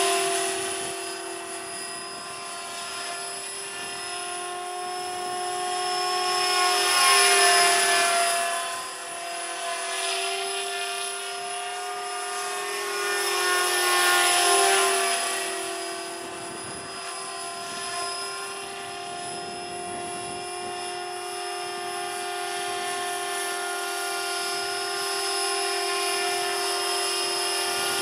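500-size electric RC model helicopter, built on a T-Rex 500 with a four-blade main rotor and a brushless motor, flying circuits: a steady whine of motor and drive with rotor noise. It swells louder twice, about seven and fourteen seconds in, its pitch bending down as it passes by.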